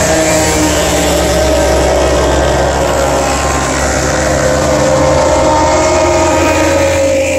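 Racing motorcycles passing at speed, their engines held at high revs and loud, with the pitch slowly falling as they go by.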